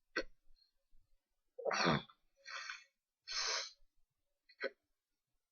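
A person's breathy sounds close to the microphone: a sigh-like exhale with a falling voice about two seconds in, then two more short breathy puffs, and a brief blip near the end.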